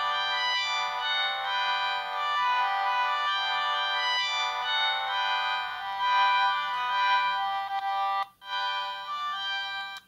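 Siemens M55 mobile phone playing a polyphonic ringtone: a melody of held notes that cuts off for a moment about eight seconds in, then resumes until just before the end.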